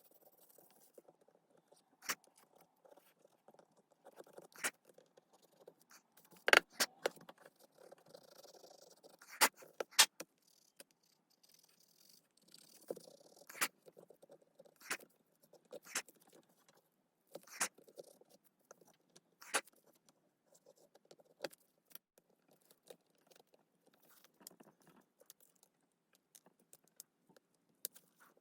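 Small hard parts and tools being handled during smartphone reassembly: irregular sharp clicks and taps, a dozen or so spread unevenly, with light scraping and rustling between them.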